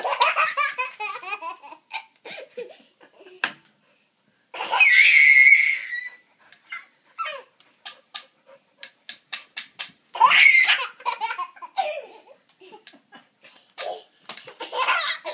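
A toddler belly-laughing in about four loud, high-pitched bouts, with short pauses and quick clicks between them.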